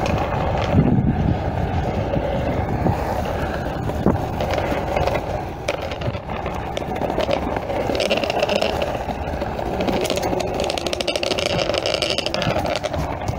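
Cruiser skateboard wheels rolling over pavement: a steady grinding rumble, with a couple of sharp clicks a few seconds in.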